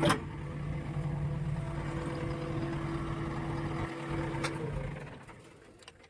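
Diesel engine running steadily, then winding down and stopping about five seconds in. A sharp knock sounds at the start and again shortly before the engine dies away.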